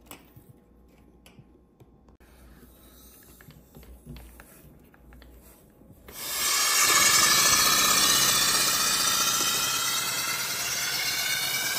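A few small clicks of handling, then about six seconds in compressed air suddenly starts hissing loudly through a paper flat-twin air engine as it runs, with faint tones rising slowly in pitch.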